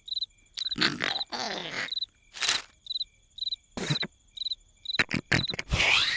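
Cartoon larva snoring: a run of noisy, drawn-out breaths, some short and some longer, over a steady cricket chirp of about two chirps a second.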